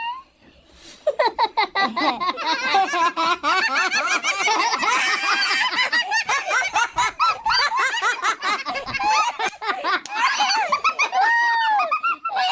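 High-pitched, squeaky-voiced laughter and chatter that bursts in about a second in and runs on without a break.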